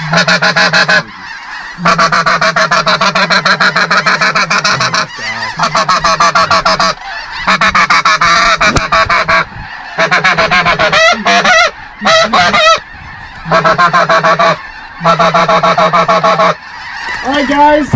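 Goose call blown hard in long runs of rapid, evenly repeated clucks, broken by short pauses. Near the middle the notes bend up and down.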